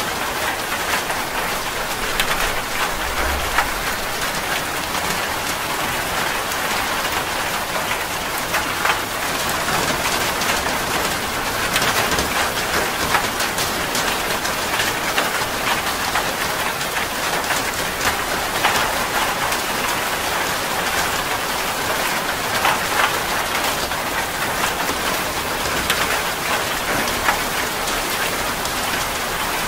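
Steady rain, a dense, even patter of countless individual drops.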